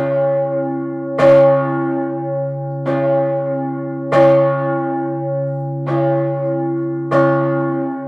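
Urban, the large 1588 bronze church bell cast by Peter Gräf and tuned about C-sharp/D-flat, ringing in full swing. The clapper strikes about every one and a half seconds, alternately louder and softer, and a deep hum rings on steadily between the strokes.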